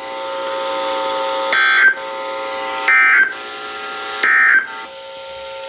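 NOAA Weather Radio receivers sounding the Emergency Alert System end-of-message data tones: three short, harsh digital squawks about a second and a half apart. A steady electronic buzzing tone runs underneath.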